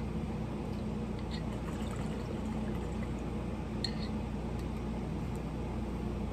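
Water bubbling in a glass beaker bong as smoke is drawn through it.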